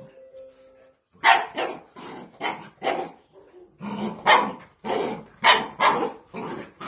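Spanish water dog puppies barking in play: after a quiet first second, a quick run of short barks, about two a second.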